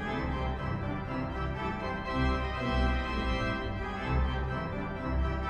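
Organ music: sustained chords over a bass line that moves every half second or so.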